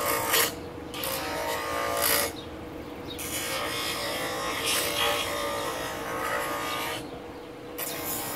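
Bench grinder running with a steady hum while a wooden starfish cut-out is pressed against the spinning wheel. The harsh grinding comes in repeated passes, breaking off briefly about a second in, again around three seconds, and once more near seven seconds, as the wood is lifted away and set back on.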